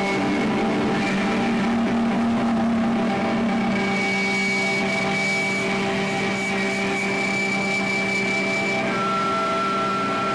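Live noise-rock band: distorted electric guitar and electronics make a dense, steady wall of sound, with long held droning tones that shift pitch now and then.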